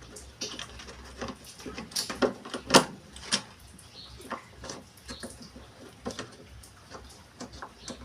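Irregular light clicks and knocks of washing-machine mechanism parts being handled and snapped together by hand while a spring is held in place. The loudest knock comes a little under three seconds in.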